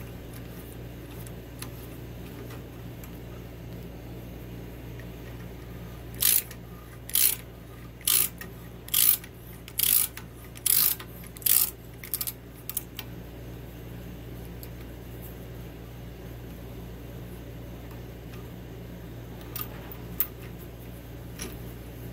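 Hand tap being turned into a drilled hole in cold-rolled steel with a T-handle tap wrench: seven short scraping, clicking bursts about one a second in the middle, then a few faint ticks.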